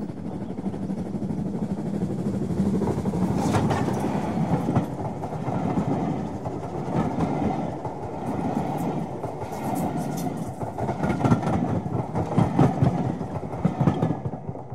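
A train's coaches running past, with a steady rumble and the wheels clicking unevenly over the rail joints.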